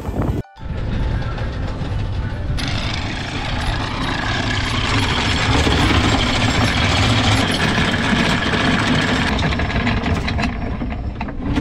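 Electric anchor windlass paying out chain over its gypsy, a steady mechanical rattle and grind of chain links that gets brighter a couple of seconds in. This is the anchor being set with a long scope of chain.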